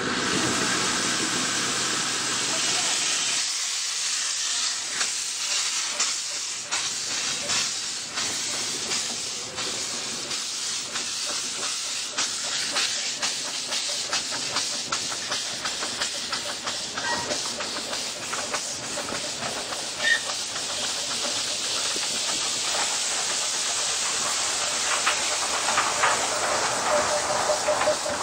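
Miniature steam locomotive under way, heard close up from the train: a steady hiss of steam with many short ticks and beats running through it.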